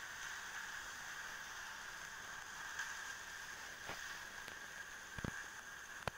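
Steady hiss of a lit gas stove burner under a steel pan, with a faint knock about five seconds in and two short clicks near the end.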